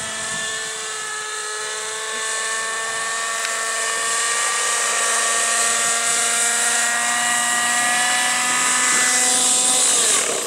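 JR Vibe 50 radio-controlled helicopter flying and coming down to hover low over the grass, a steady high-pitched engine and rotor whine that grows louder as it nears. Near the end the pitch drops sharply and then picks up again.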